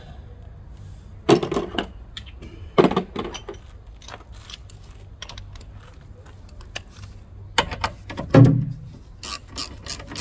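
Metal hand tools and loose nuts and bolts clinking and knocking as they are handled: sharp knocks about a second in and again just under three seconds in, two more near eight seconds (the second the loudest and deepest), then a run of quick light clicks near the end.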